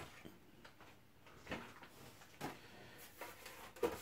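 Faint handling of a small metal-cased network video recorder as it is lifted and turned in the hands: a few scattered light knocks and rubs in a quiet room.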